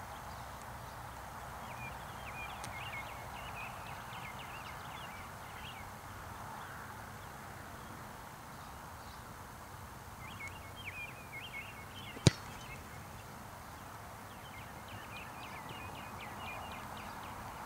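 A single sharp thump of a football being kicked off a tee about twelve seconds in, over a steady outdoor wind hiss and scattered high chirps.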